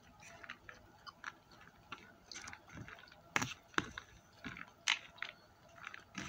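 A person chewing a mouthful of food close to the microphone, with irregular soft wet clicks and smacks and a few sharper ones in the middle.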